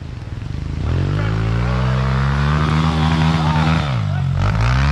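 A youth dirt bike engine approaching under throttle, revving up and holding steady at high revs, then dropping in pitch as the bike passes close by near the end.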